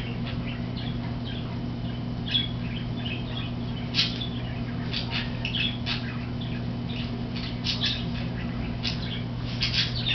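Dogs scuffling and play-humping: scattered short, high-pitched clicks and squeaks, over a steady low hum.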